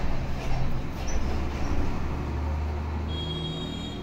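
A steady low rumble, strongest a little past the middle, with rough rustling in the first couple of seconds as a full-face motorcycle helmet is pulled on over the head. Faint high steady tones come in near the end.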